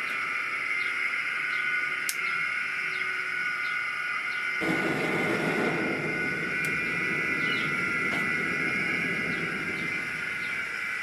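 Gas burner flame hissing, and about four and a half seconds in a deeper, fuller roar joins in and holds. In the speaker's terms a hissing flame marks a gas-rich reducing flame and a roaring one an air-rich oxidizing flame, here with blower air driven into a gas torch and pipe burner.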